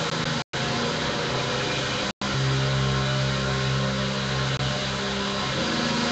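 Drone guitar: sustained low notes under a dense noisy wash. The low notes shift about two seconds in and again near the end, and the sound cuts out for an instant twice in the first couple of seconds.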